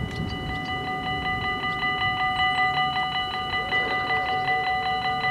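Electronic warning bells of a Dutch automatic half-barrier level crossing ringing in a fast, even rhythm: the signal that a train is approaching and the barriers are coming down.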